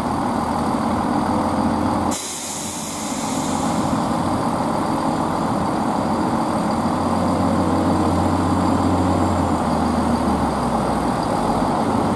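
A train's diesel engine running at idle at the platform, a steady low hum. About two seconds in the sound changes abruptly with a short hiss, and near the end the engine note drops lower.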